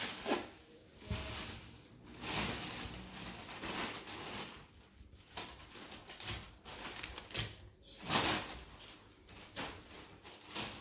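Thin plastic shopping bags rustling and crinkling in irregular bursts as groceries are handled and taken out of them.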